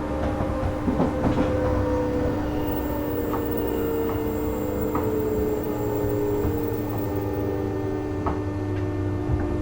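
JR West 201 series thyristor-chopper electric train running. A steady hum is joined by a whine that slowly falls in pitch, over a rumble of wheels on rail, with a few scattered clicks.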